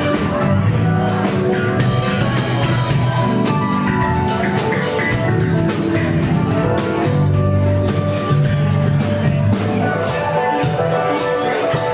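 Band music in a rock-and-roll style: guitar and drum kit playing with a steady beat.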